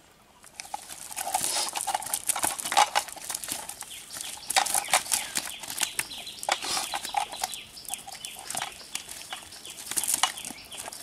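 Freshly caught fish flapping and slapping inside a cast net on wet ground, with the net's mesh rustling as hands pull at it. It comes as a dense, irregular run of quick slaps and rustles, starting about half a second in.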